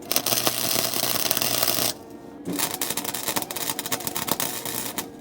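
Arc welding on car floor-pan seams from underneath: two welding runs, each about two seconds of dense crackling and sizzling, with a short break between them.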